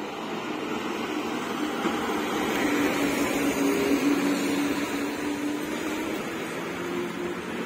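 KSRTC bus's diesel engine running as the bus rounds a hairpin bend and passes close by, growing louder to a peak about four seconds in and then easing as it pulls away.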